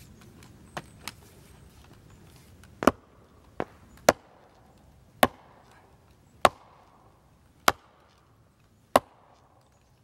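Axe swung overhead, its back striking the top of a wooden fence post to drive it into the ground: about seven heavy wooden blows, roughly one every second and a quarter, starting about three seconds in, after two light knocks.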